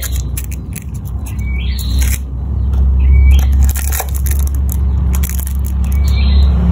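Crinkly foil lining and a small plastic bag rustling and crackling as fingers dig a toy out of a snack cup, in short irregular crackles. A steady low rumble runs underneath.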